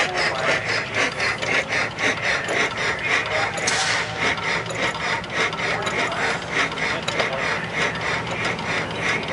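1912 Stover 8 hp hit-and-miss gas engine running slow, with a steady mechanical clacking of about three to four strokes a second.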